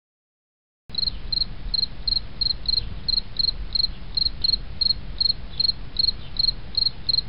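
Cricket chirping in a steady, even rhythm of short high chirps, about three a second, over a low background rumble; it cuts in abruptly about a second in.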